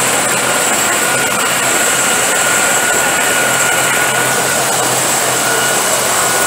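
Bell 212 helicopter running on the ground with its rotors turning: a steady turbine whine over the roar of the rotors and engines.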